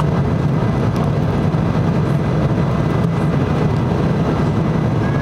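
Steady drone of an airliner in flight heard from inside the cabin: engine and rushing-air noise with a low hum, even throughout.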